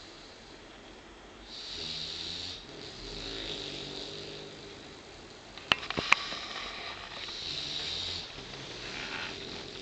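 Sleeping puppy snoring: four slow breaths a couple of seconds apart, one with a low buzzing rattle. Two sharp clicks about six seconds in, half a second apart, are the loudest sounds.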